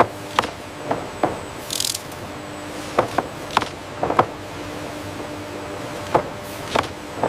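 Irregular mechanical knocks and clacks, about a dozen, over a steady machine hum, with a short hiss about two seconds in.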